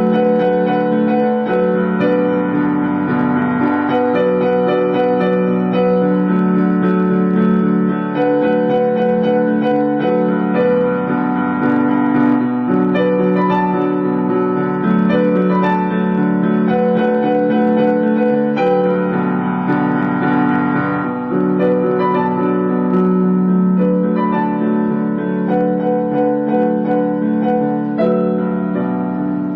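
Piano music: a melody of held notes over sustained chords.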